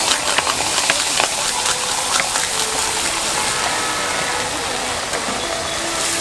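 Hot flat-top griddle hissing and crackling as water is squirted from a plastic bottle onto it around egg-topped cold-noodle sheets. The crackles are densest in the first couple of seconds, then settle into a steady sizzle.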